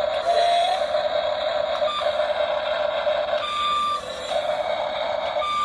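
Radio-controlled model excavator running, a steady high motor whine with no deep rumble. Single electronic beeps sound about two seconds in, again for about half a second around three and a half seconds, and briefly near the end.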